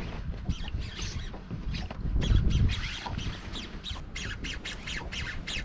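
Fishing reel clicking rapidly and irregularly as line is fought against a hooked, hard-pulling coalfish, the clicks coming thicker near the end. Low wind rumble on the microphone underneath.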